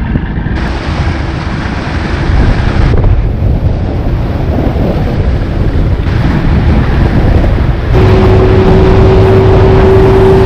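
Bass boat's outboard motor running under way, with wind buffeting the microphone and water rushing along the hull. About eight seconds in it gets louder and settles into a steady tone as the boat picks up speed.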